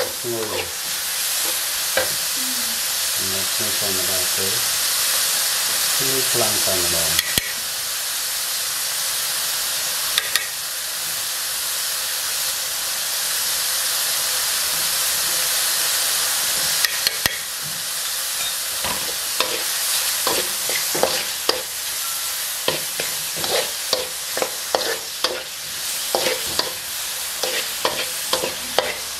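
Sliced meat stir-frying in a steel wok: a steady sizzle, with a metal spatula scraping and clacking against the pan, the strokes coming thick and fast in the last third.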